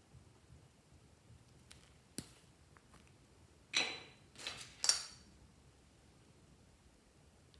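Small handling noises from slime mixing: a couple of light clicks, then three short crackly squishes in quick succession a little past the middle.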